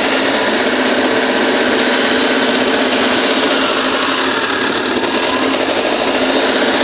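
Diesel engine of a Volvo 210D excavator turning over, a steady, continuous mechanical sound, heard during diagnosis of a no-start fault that the technician puts down to a faulty fuel sensor.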